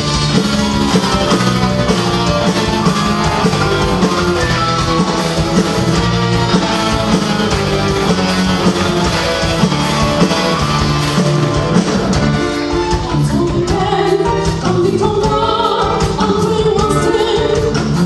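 Rock band with a string orchestra playing live: drums, electric and bass guitars, keyboard and strings in a steady full arrangement. A woman's singing voice comes in about 13 seconds in.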